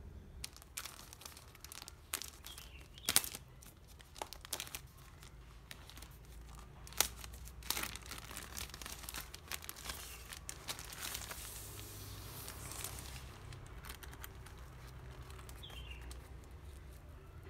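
Plastic bag around a laptop sleeve being torn open and crumpled by hand: irregular crinkles and rips, sharpest about three and seven seconds in. This gives way to quieter handling of the sleeve in the last few seconds.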